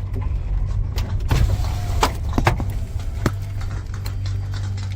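Steady low rumble with a handful of sharp knocks and clicks in the middle of it.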